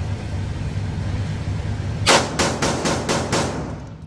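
PSA Dagger 9mm pistol fired in a rapid string of shots about a quarter second apart, starting about two seconds in, each one echoing in an indoor range. A low steady hum runs underneath.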